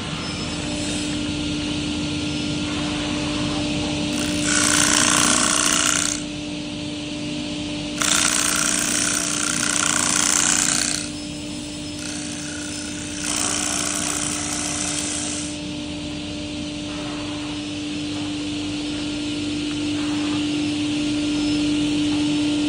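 Wood lathe for turning plates running with a steady hum and tone, broken three times by louder spells of hissing cutting noise, each two to three seconds long, as the tool cuts the spinning wood.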